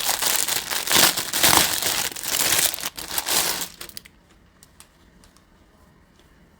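Packaging of fishnet tights crinkling and rustling as the packs are handled. It stops suddenly about four seconds in, leaving only a few faint clicks.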